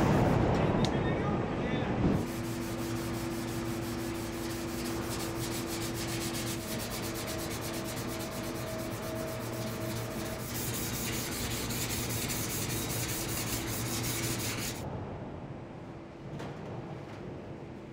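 Hand rubbing and rasping along the edge of a pressed steel car body panel, loudest in the first two seconds, over a steady hum of factory machinery with several held pitches.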